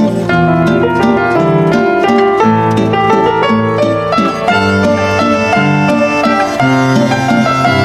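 Instrumental background music: a run of short notes over held chords, with no speech.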